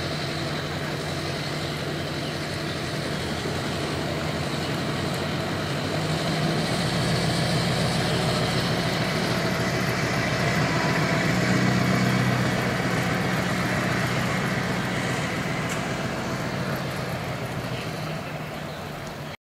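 Pickup truck engine running steadily as it tows a bass boat on its trailer past, growing louder about a third of the way in and then slowly fading away.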